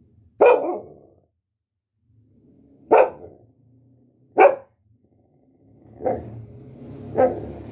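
Dog barking five times, short single barks spaced one to two and a half seconds apart, the last two softer.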